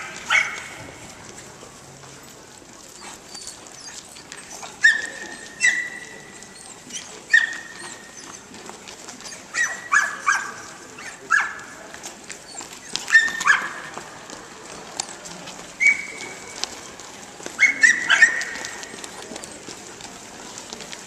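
Border Collies barking, about fifteen sharp, high-pitched barks at irregular intervals, some in quick doubles and triples.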